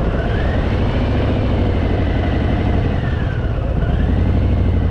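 Harley-Davidson Fat Boy V-twin engine running steadily under the rider, with a faint whistle over it that rises and falls in pitch.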